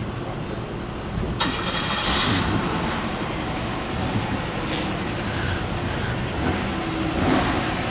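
Vehicle engines running steadily, with a sudden burst of noise about a second and a half in that lasts about a second, and a smaller swell near the end.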